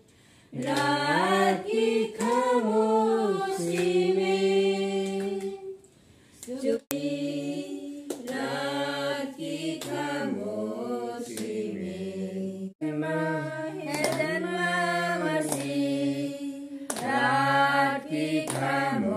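A small group of women singing a hymn together, unaccompanied, in long held phrases, with a brief pause about six seconds in.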